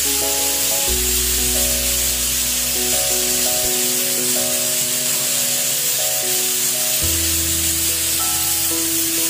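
Steam hissing steadily from an aluminium stovetop pressure cooker building to its whistles, under background music of held melodic notes and a bass line.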